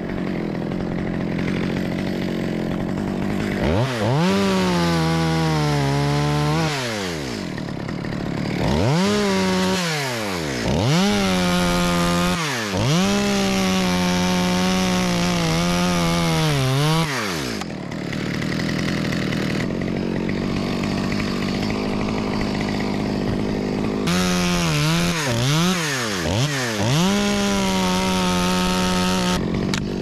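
Stihl top-handle two-stroke chainsaw cutting through a eucalyptus stem. The engine revs up to full throttle and its pitch sags under load during cuts of a few seconds each, with a long run of cuts in the middle. Between cuts it drops back to idle, and near the end it gives several quick throttle blips.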